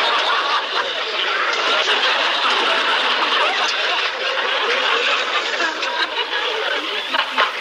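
Sitcom audience laughing after a punchline, a steady crowd of laughter.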